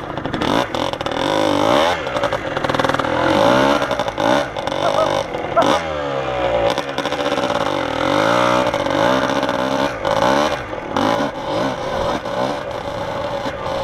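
Kawasaki KDX two-stroke dirt bike engine revving up and down repeatedly, its pitch rising and falling again and again while riding through deep snow.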